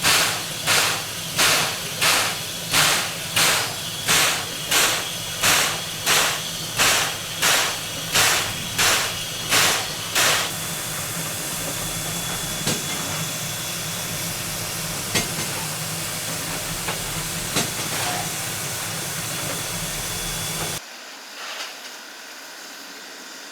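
Steam locomotive pulling away, its exhaust chuffing evenly about three times every two seconds, then giving way to a steady hiss with a few faint clicks. Near the end the sound cuts off abruptly to a much quieter background.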